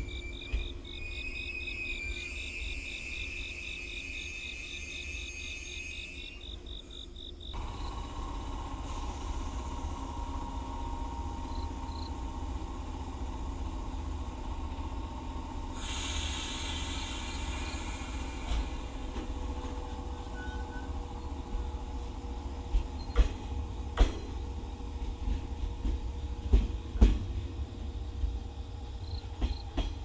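Insects chirping in fast pulses for the first several seconds. Then a 115-series electric train stands at the platform with a steady hum, with a short burst of compressed-air hiss about halfway through and several sharp clunks near the end.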